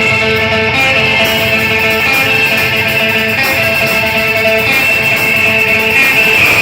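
A band playing live, led by electric guitar with held, ringing chords.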